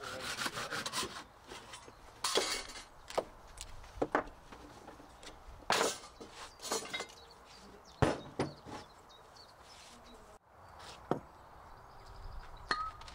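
Irregular wooden knocks and scraping as a wooden stick and a heavy iron hammer head are worked against each other on a wooden workbench, to get the broken handle stub out of the head. After a short break near the end, a few footsteps of rubber boots on concrete.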